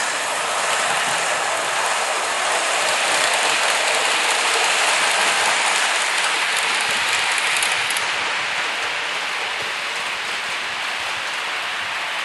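Model train running on its track close by: a steady rattling whir of wheels and motor that grows louder toward the middle as it passes and eases off afterwards. A brief run of fast clicks comes in the middle.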